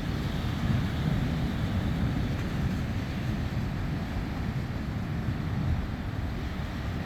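Sea surf washing on the beach, with wind buffeting the microphone in a steady low rumble.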